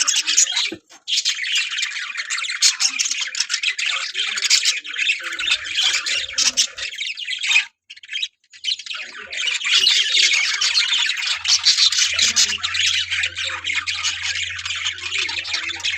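A colony of budgerigars chattering and squawking together in a dense, continuous twitter, which drops out briefly twice, near the start and about halfway.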